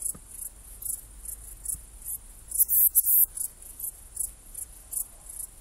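Steppe saddle-backed bush cricket (Ephippiger ephippiger) stridulating: a high-pitched chirp of several quick pulses about halfway through, with fainter short ticks of song in between.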